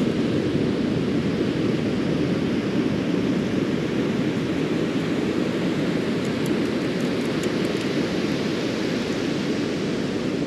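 Steady roar of ocean surf mixed with wind buffeting the microphone. A few faint ticks come about six to seven seconds in, as sand is shaken through a stainless-steel sand scoop.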